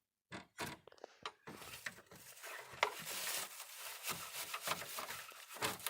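Dry bird's-nest material crackling and rustling as it is pulled and scraped out of a truck's air intake behind the grill, with scattered sharp snaps.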